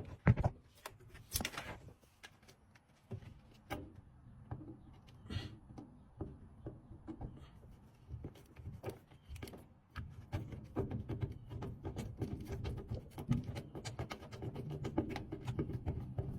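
Hands working on a washing machine's drain pump, making scattered clicks and knocks. A couple of sharp knocks come near the start, and the rattling and clicking grow busier over the last several seconds.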